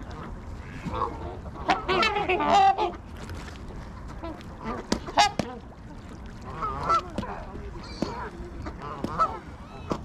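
Canada geese honking in scattered bursts among a flock of waterfowl, loudest about two seconds in.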